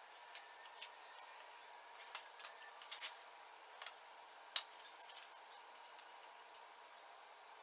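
Faint scattered clicks and taps from small objects being handled, a small glass jar among them. The sharpest tap, about four and a half seconds in, fits the glass jar being set down on the concrete floor.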